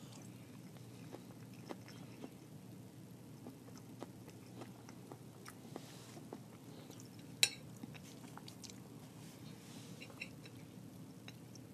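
Close-miked chewing of a spoonful of vegan vegetable stir fry, with small wet mouth clicks and one sharp click about seven seconds in, over a low steady hum.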